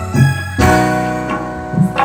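Electronic keyboard playing the instrumental intro of a dangdut song: sustained chords over a steady bass line, changing chord about half a second in.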